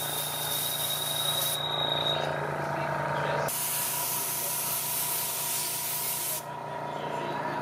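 A steady spraying hiss over a low motor hum. The high hiss cuts out abruptly twice, about a second and a half in and again near the end, and comes back in between.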